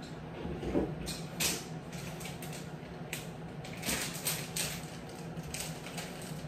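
Scattered light clicks and rustles, a handful spread over several seconds, over a low steady hum.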